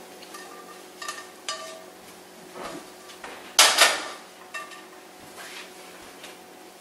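Metal spatula clinking against a cast iron skillet, a few light ringing taps, then one loud clank about three and a half seconds in as the skillet is set down.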